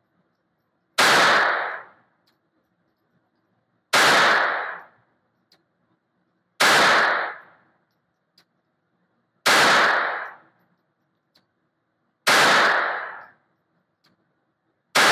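Beretta 21A Bobcat .22 LR pocket pistol fired slowly, six single shots about three seconds apart. Each shot rings on briefly in the echo of an indoor range.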